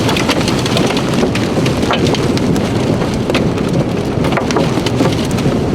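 Heavy wind-driven rain pelting a vehicle inside a tornadic thunderstorm: a steady loud rush of rain and wind with many sharp drop hits.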